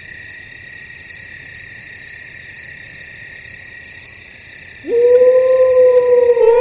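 Night ambience of crickets chirping, a steady high trill with regular pulses about twice a second. About five seconds in, a loud long animal call sets in, rising briefly and then held, its pitch slowly falling.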